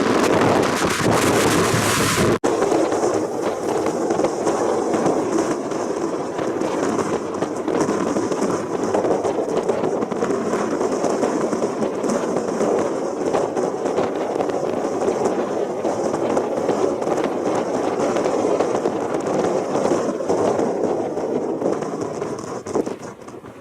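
Strong typhoon wind buffeting the microphone: a loud, rough crackling noise that changes abruptly about two seconds in.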